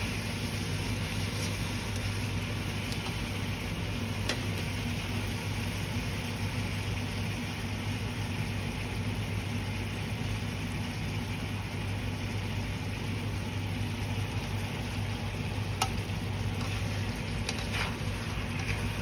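Chicken wings and mushrooms sizzling steadily in a nonstick frying pan over a constant low hum, with a few light clicks about four seconds in and again near the end.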